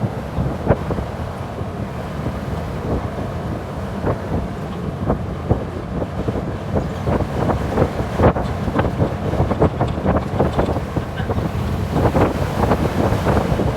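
Jeep driving on a bumpy dirt road, with a steady low rumble of engine and tyres and wind buffeting the microphone. Frequent short knocks and rattles come from the bumps, more of them in the second half.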